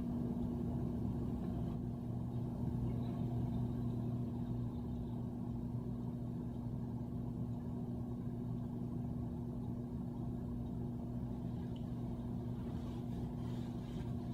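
Steady low electrical hum with a faint rumble beneath it, with no speech.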